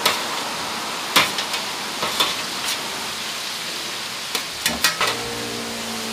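Hot oil in a deep fryer sizzling steadily, with several sharp metal clicks and clinks from utensils and trays. About five seconds in, a steady machine hum joins it.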